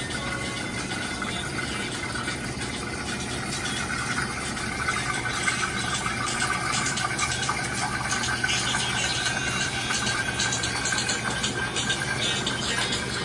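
Vitamix blender motor running steadily at low speed, blending a vinaigrette while oil is streamed in to emulsify it. It grows a little louder about five seconds in.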